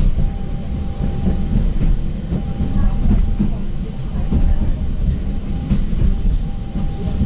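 Ride noise inside a moving ŁKA 36WEd electric multiple unit: a steady low rumble of wheels on track with a thin steady whine over it and a few light clicks.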